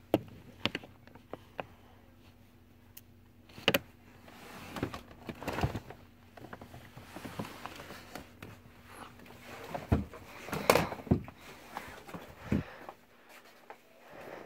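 Handling noise from a phone being moved about by hand: scattered knocks and clicks with rustling and scraping between them, and a faint low steady hum that stops near the end.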